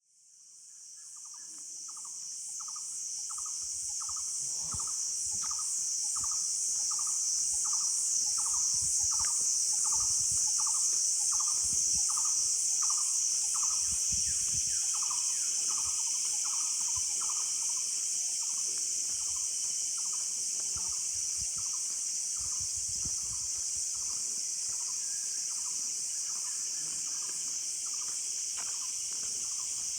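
Dense insect chorus making a steady high buzz, with a short repeated call about twice a second that grows fainter after the middle. The sound fades in over the first few seconds.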